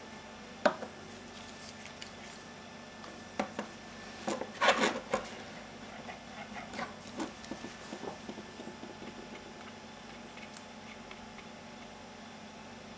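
Handling noises while a sample in a plastic dish is worked on: a sharp click just under a second in, a cluster of rubbing and knocks around four to five seconds, then scattered small clicks. A steady faint hum runs underneath.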